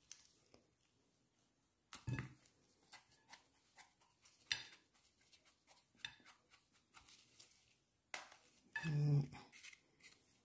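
Small knife scraping and trimming dirt off a wild bolete mushroom over a porcelain plate: scattered soft scrapes and light clicks, with occasional taps on the plate.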